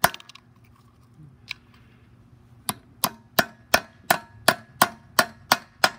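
Hammer tapping a steel push nut onto the half-inch axle of a hand truck wheel. One strike, a pause, then a run of about ten sharp taps at roughly three a second as the nut is driven home.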